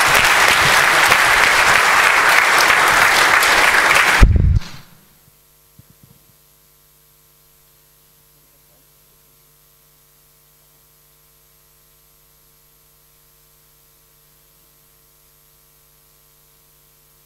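Audience applause in a lecture hall, cutting off abruptly about four and a half seconds in. After that only a faint, steady electrical hum remains.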